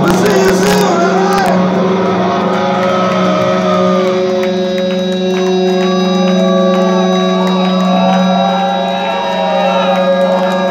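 Live rock band letting a final chord ring out at the end of a song: steady sustained guitar and bass tones with cymbal crashes near the start, over a crowd shouting and cheering.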